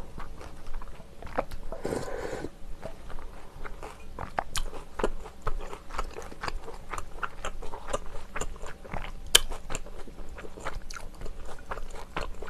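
Close-miked eating sounds: steady chewing and crunching with many sharp, wet clicking mouth sounds, and a short sip of broth about two seconds in.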